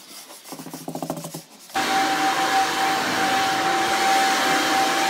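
Faint scraping, then a leaf blower starts suddenly about two seconds in and runs steadily with a loud rush of air and a steady whine, clearing grinding dust after the concrete has been ground.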